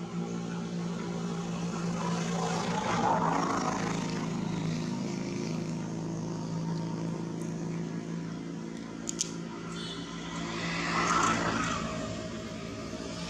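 Motor vehicle engine noise: a steady low hum, with a vehicle passing and swelling louder about three seconds in and again a couple of seconds before the end.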